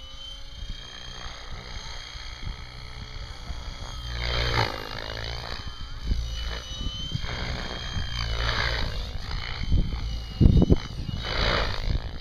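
Electric Mikado Logo 600 SE radio-controlled helicopter flying aerobatics overhead, its drive giving a steady high whine. Its rotor blades whoosh in loud sweeps several times as it manoeuvres. There is a brief low thump late on.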